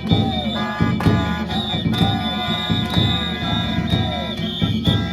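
Danjiri float's festival music (narimono): struck drum and hand gongs beating about once a second, with a sustained high metallic ringing over a heavy low rumble.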